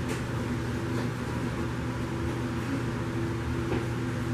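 Steady mechanical hum with a low drone and a couple of higher steady tones, like a running fan or ventilation unit. A couple of faint soft taps come near the end.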